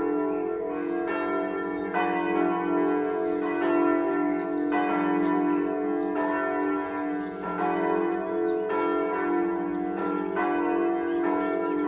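The Südkirche's church bells ringing together in a full peal for the daily evening ecumenical ringing. Several bells strike in overlapping turn, a fresh stroke about every second or so, over a steady lingering hum.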